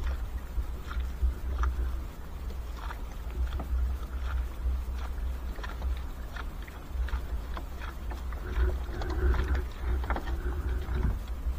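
Triple-layer trammel net paying out over a small boat's gunwale: rustling and irregular light clicks and knocks as the net and its floats drag across the hull. A steady low rumble runs underneath.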